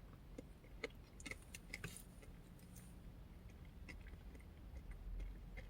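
Faint, close chewing of an oatmeal, yogurt and granola parfait, heard as scattered soft mouth clicks and ticks at an irregular pace.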